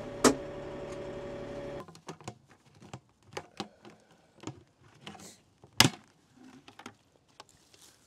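Kioti DK6010SE tractor's diesel engine running steadily, with a sharp click just after the start; it stops abruptly about two seconds in. Then scattered clicks and knocks of plastic sap buckets and a lid being handled, with one loud sharp knock a little before six seconds in.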